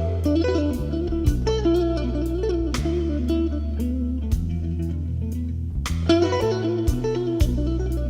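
Instrumental break of a blues-style song: a guitar melody over steady bass notes and a regular beat.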